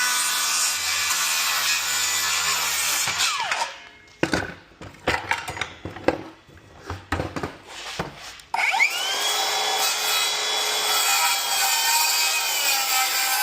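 Corded circular saw cutting lumber, then winding down with a falling whine about three seconds in. Several separate knocks follow. The saw starts up again with a rising whine at about nine seconds and runs steadily through another cut.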